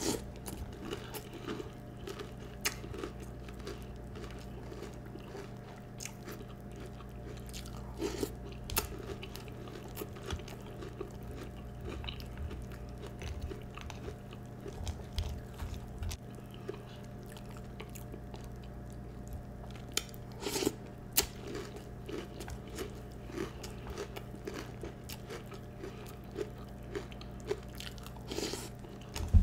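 Close-up chewing and crunching of Peeps marshmallow-flavored cereal, with scattered crisp crunches from mouthful after mouthful. A steady low hum runs underneath. The loudest crunches come about twenty seconds in.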